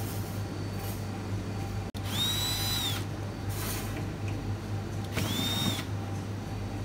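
Power drill whirring in two short bursts of about a second each, spinning up, holding and winding down, over a steady low hum.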